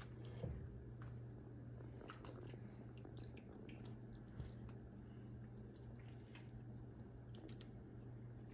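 Faint wet squelches, drips and light clicks of soft steamed fish and its sauce being lifted and moved out of the pot, over a steady low hum.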